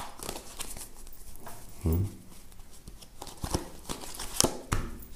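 A deck of tarot cards being shuffled and handled: papery rustling with short, sharp card snaps, coming more often in the second half.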